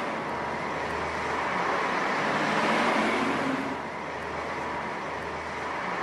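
Steady road traffic noise of cars passing on a street, dropping a little in level about four seconds in.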